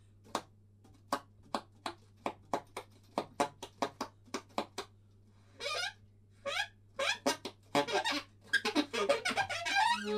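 Alto saxophone played in short staccato squeaks and honks: a steady run of sharp pops, about two or three a second, then a few longer wavering squeals and a dense flurry of squeaks near the end.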